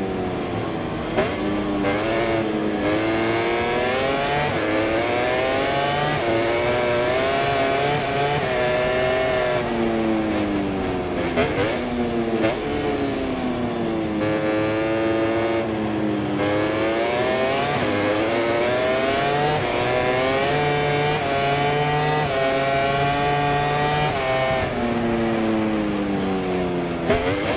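MotoGP racing motorcycle's four-cylinder engine heard from onboard, at racing speed. Its pitch climbs in steps as it shifts up through the gears, then falls in long sweeps as it slows for corners, over and over.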